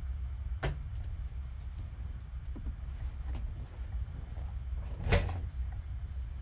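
Trading cards and their plastic holders being handled and sorted on a table: two sharp clicks, one under a second in and a louder one about five seconds in, with a few faint ticks, over a steady low hum.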